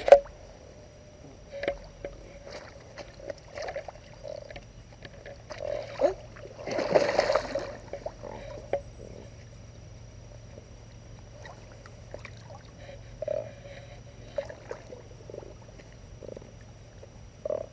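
Water splashing as catfish on a rope stringer thrash and are pulled through shallow water, the biggest splash about seven seconds in, with scattered small knocks and drips around it.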